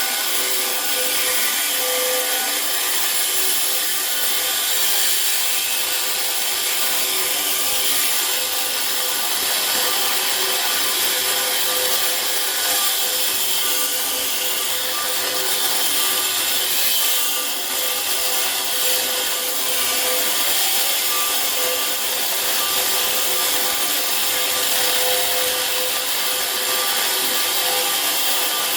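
A power tool cutting steadily and continuously into a safe.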